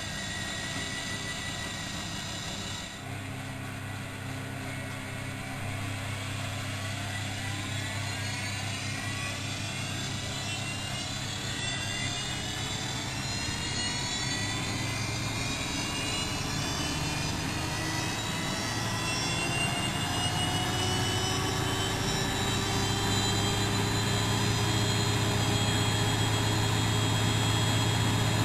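Bosch WFM3010 washing machine speeding up into its spin: a motor whine rising steadily in pitch and growing louder as the drum gathers speed.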